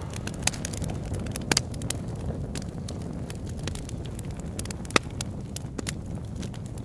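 A steady low rumble with scattered crackling clicks, one sharper click about five seconds in.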